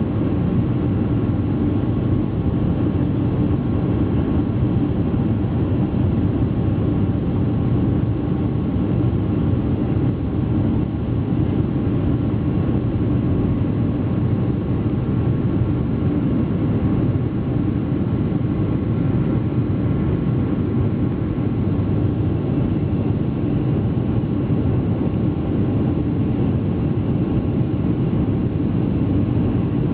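Boeing 737-500's CFM56-3 jet engines running at takeoff or climb thrust: a steady, deep jet roar with faint steady tones above it that does not rise or fade.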